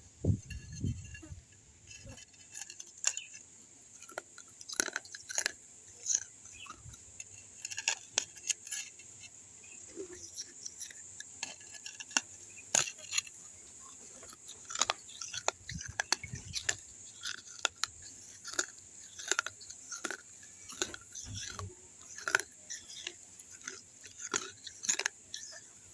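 Pieces of a baked clay kulhad cup being crunched and chewed in the mouth: irregular sharp crunches and crackles throughout, over a steady faint hiss.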